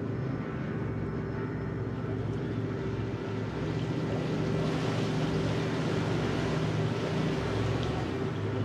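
Canal cruise boat's engine running with a steady low hum, and a hiss that swells from about halfway through.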